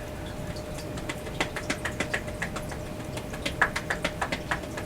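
Quick, light taps of loose fists on the lower back and hips, several a second, starting about a second in: qigong self-tapping massage.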